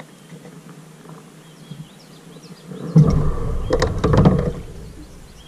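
Branches of a riverbank brush pile rustling and cracking as they are grabbed and pulled by hand. This starts about three seconds in with a low rumble and a run of sharp cracks, and lasts about a second and a half.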